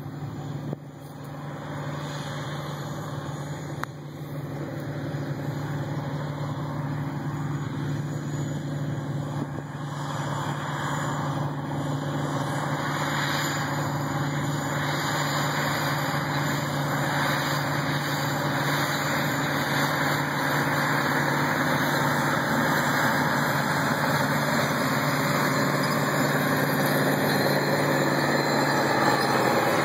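John Deere 8850 four-wheel-drive tractor's 15.7-litre turbocharged V8 diesel running steadily while it pulls a tillage implement through the field. It grows steadily louder as the tractor approaches.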